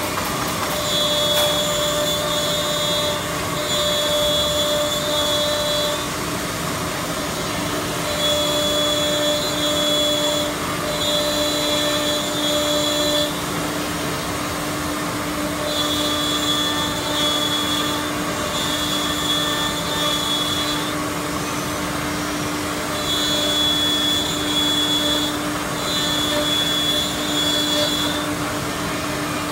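SM-1325A4 four-head CNC router running: a high spindle whine comes and goes in spells of about two seconds, often in pairs, over the steady rush of the dust extraction. A lower steady hum joins about a quarter of the way in.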